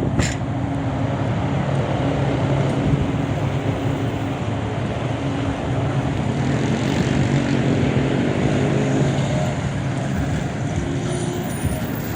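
Street traffic: a motor vehicle engine running with a steady low hum. Around the middle its pitch glides up and down as it changes speed. A sharp click comes just after the start.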